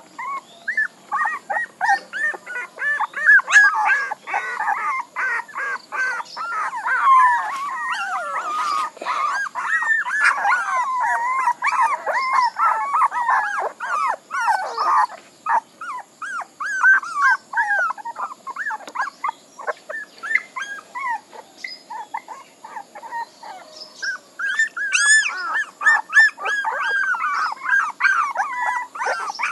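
A litter of young puppies whining and crying: many short, high, rising-and-falling cries, often overlapping, with a quieter stretch a little past the middle.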